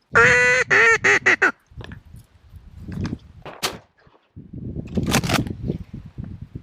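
Duck call blown in a loud run of quacks, a longer note then several quicker, shorter ones falling away, over about a second and a half. Softer rustling and knocking follow.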